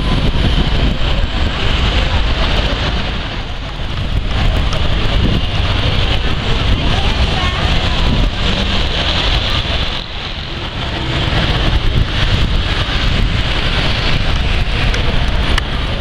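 Dense downtown street traffic: city buses, cars and motorcycles running through a busy intersection, giving a loud, steady mix of engine and tyre noise.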